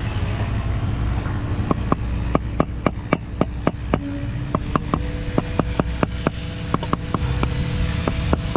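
A steady engine-like rumble with a constant hum, and over it a run of sharp knocks, about three a second, starting nearly two seconds in and stopping near the end.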